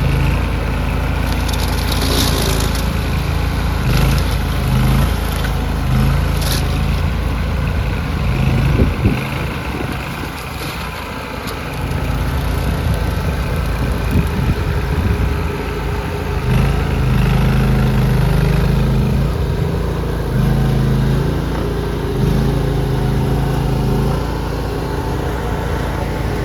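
Skid steer loader's engine running, its pitch and load shifting as it works, with a brief drop in level about ten seconds in.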